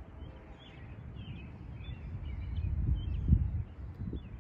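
Outdoor ambience: a low, irregular rumbling noise that swells and peaks about three seconds in, with small birds chirping faintly throughout.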